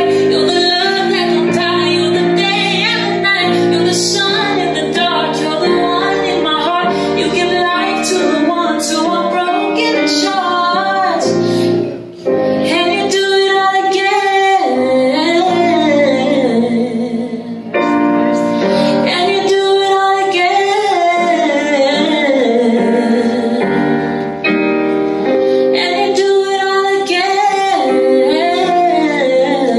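A woman singing live, accompanying herself with piano chords on a Yamaha electronic keyboard, with a brief break about twelve seconds in.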